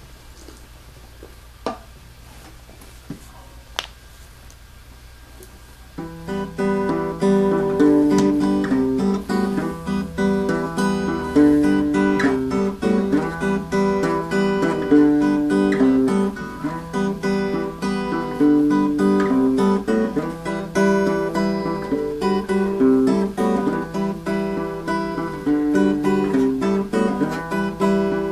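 Electric guitar played solo: about six seconds of faint steady hum and a few clicks, then a continuous melody of plucked single notes and chords.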